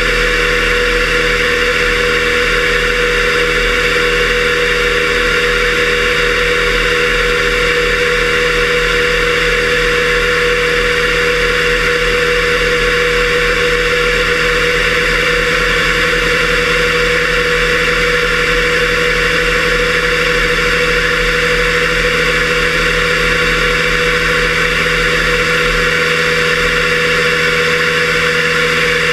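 Fairchild J44 turbojet running steadily at idle, with a steady whine over a broad rushing hiss. Heard from inside a waterproof camera case on the engine's stand, so the roar is muffled and vibration from the engine shaft and gears comes through the frame.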